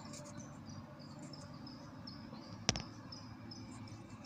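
Ford Focus 3 engine running with a rapid, light metallic ticking knock, which the owner takes for piston pin knock and piston slap. One louder thump about two and a half seconds in.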